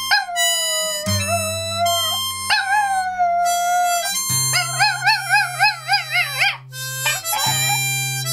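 Chihuahua howling along to harmonica chords, in long drawn-out notes, then one howl that wavers up and down before breaking off into a few short cries about two-thirds of the way in. The harmonica goes on alone near the end.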